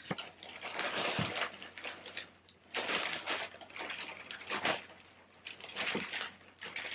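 Plastic wrap rustling and crinkling in irregular bursts, as a cat plays in a plastic bag and the parcel is handled.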